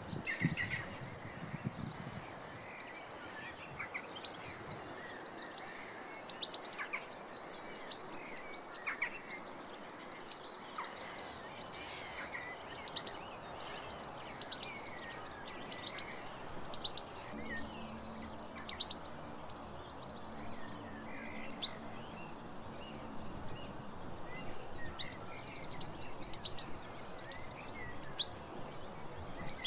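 Several wild birds singing and chirping, many short high calls and trills overlapping, over a steady background hiss. A low steady hum joins in for several seconds past the middle.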